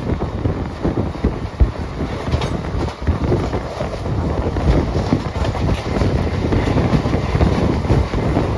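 Indian Railways train running through at speed: a steady rumble of wheels on rail, with irregular clattering knocks over the rail joints.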